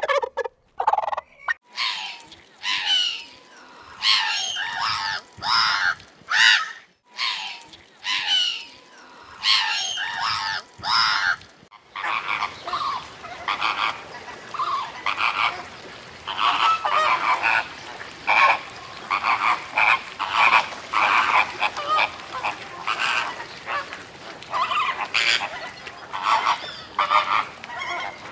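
A flock of flamingos honking: loud, separate goose-like calls at first, then from about midway a dense chorus of overlapping honks.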